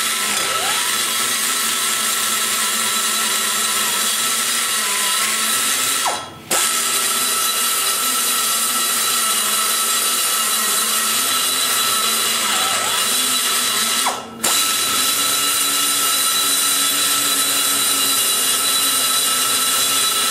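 Die grinder with a long-shank carbide burr cutting into the exhaust port roof of a KMJ 345cc big-block Chevy cylinder head, shaping the port from square toward round. It runs at a steady high whine, letting off and spinning back up twice, about six and fourteen seconds in.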